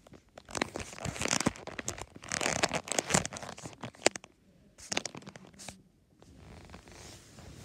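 Close rustling, rubbing and scattered clicks of hands handling a phone camera right at its microphone while it is set down and positioned, dying down in the last couple of seconds.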